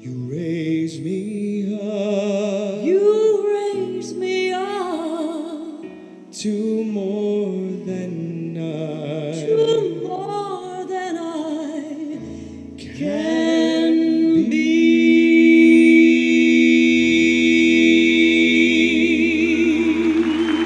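A woman singing the closing phrases of a slow ballad over instrumental backing, with wavering vibrato, ending on a long held note. Applause starts just as the note ends.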